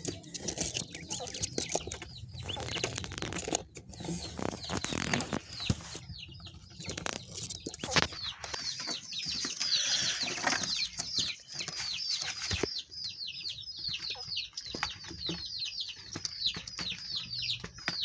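Caged quail with scuffling and knocks as an enamel bowl is set down among them. From about halfway, rapid high bird chirps, each falling in pitch, come several a second and run on.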